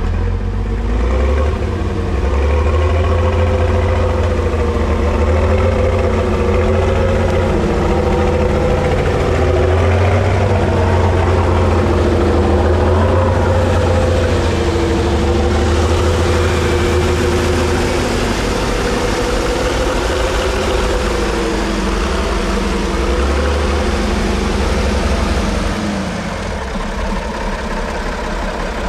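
Praga V3S trial truck's engine working through an off-road section, its revs rising and falling. About three seconds before the end it drops back to a quieter idle.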